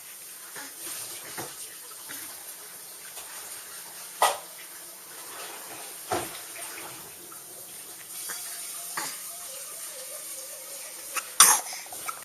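A baby sneezing: short sharp sneezes a few seconds apart, the loudest near the end, over a steady background hiss.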